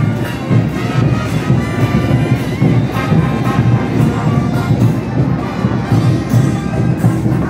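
Brass band music with a steady drumbeat, playing a dance tune for diablada dancers.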